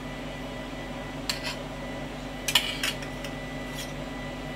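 A handful of light clinks of utensils and food being set into a ceramic soup plate as vegetables are placed in it, over a steady low hum.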